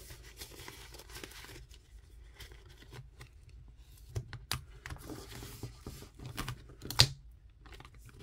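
Paper dollar bills and clear plastic binder sleeves rustling and crinkling as the bills are handled and slid into the pockets, with scattered small clicks and one sharper tap near the end.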